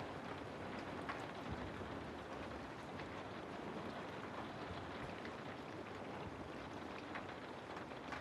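Steady rain falling through forest trees, an even hiss with scattered individual drops ticking.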